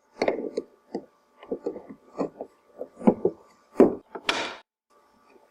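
Stamped sheet-metal feed tray of a UK vz. 59 machine gun being fitted and locked onto the receiver: a string of light metallic clicks and knocks, with a brief scrape about four seconds in.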